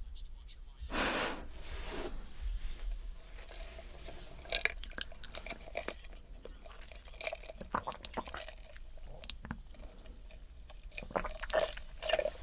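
Close-miked breathing: one loud breath about a second in, followed by many small wet mouth clicks and lip sounds.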